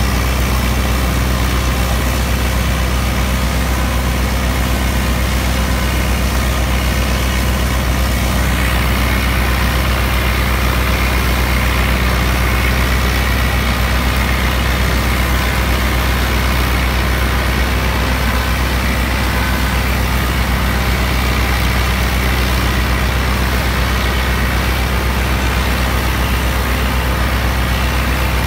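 New Holland Dabung 85 tractor's four-cylinder diesel engine running steadily under load, driving a PTO-powered wheat straw chopper whose whir and rush of straw mix with the engine. A higher whine grows stronger about eight seconds in.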